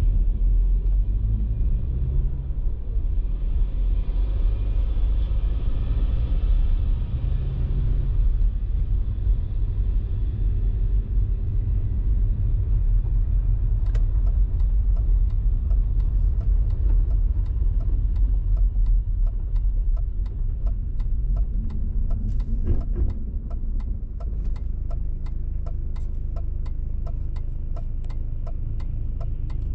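Car driving on a city street, with steady low road and engine rumble. About halfway through, a regular ticking starts at roughly two to three ticks a second, typical of the turn-signal indicator clicking.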